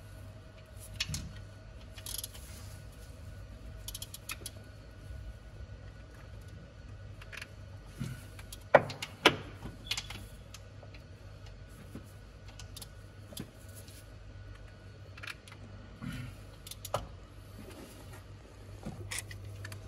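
Scattered metallic clicks and clinks of a hand tool tightening the bolts of a newly fitted water pump, with two sharper knocks about nine seconds in.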